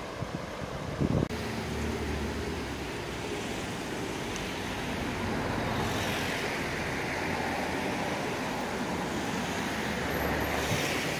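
Fast floodwater of the swollen Loire rushing past, with wind buffeting the microphone about a second in. Then a steady road-traffic rumble over the water noise, swelling as vehicles pass about six seconds in and again near the end.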